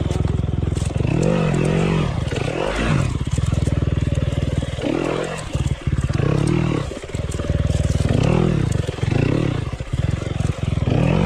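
KTM 300 XC-W TPI's two-stroke single-cylinder engine running at low revs, the throttle blipped so the pitch rises and falls several times while the bike is worked slowly through rough ground.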